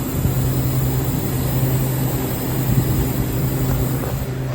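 Walk-in cooler refrigeration system running: a steady low hum under a rushing hiss of refrigerant. The system is short of refrigerant: low pressure and a very empty sight glass.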